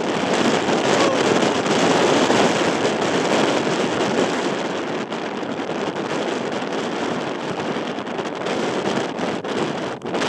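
Wind rushing and buffeting the microphone in a steady noisy roar, strongest a couple of seconds in, with a few crackling gusts near the end.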